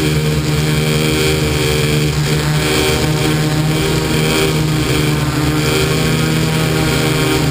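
Multirotor drone's electric motors and propellers droning steadily in flight, a steady hum with a strong low tone and fainter higher tones over a rushing haze.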